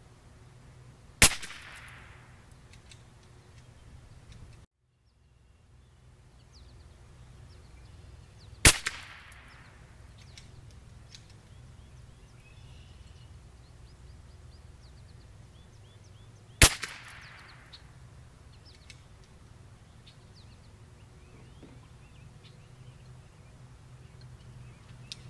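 Three single shots from a Bergara B14R .22 LR bolt-action rifle firing SK Standard Plus ammunition, spaced about seven to eight seconds apart. Each is a sharp crack with a short echoing tail.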